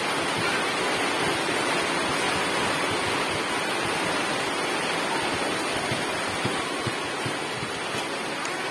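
Heavy rain falling steadily on puddles and grass.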